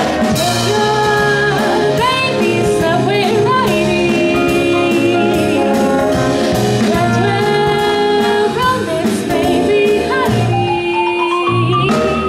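Small jazz band playing live, with a woman singing over a drum kit keeping a steady beat of cymbal strokes. Near the end a long line climbs steadily in pitch.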